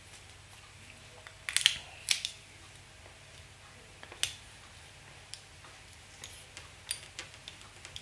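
Scattered sharp clicks and light metallic snips from small fly-tying scissors being picked up and handled at the vise. The loudest two come about a second and a half in, followed by a single click near four seconds and then a run of lighter ticks.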